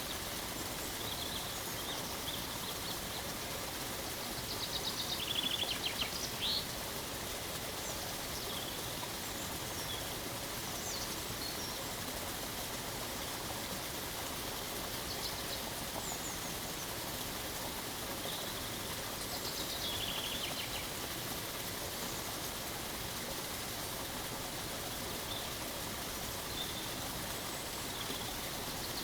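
Waterfall rushing steadily, with songbirds chirping over it in several short trilled phrases.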